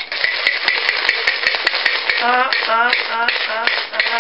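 Yahtzee dice rattling as they are shaken in a plastic dice cup, a fast steady clatter.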